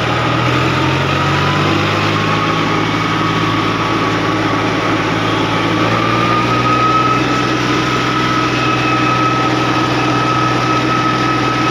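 Tractor diesel engine running steadily while driving on the road, heard from the driver's seat, with a thin steady whine above it that rises slightly about six seconds in.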